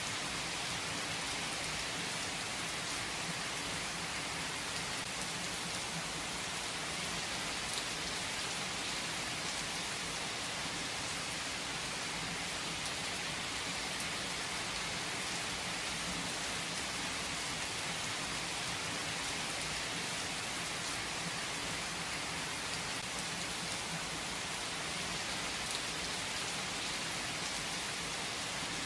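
Heavy rain falling steadily: an even hiss that never lets up, with now and then a single louder drop.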